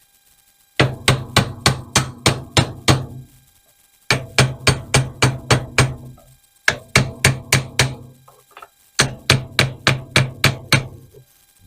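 Rapid metal-on-metal tapping, about four strikes a second in four runs with short pauses, as a rifle part is knocked into line during AR-15 assembly.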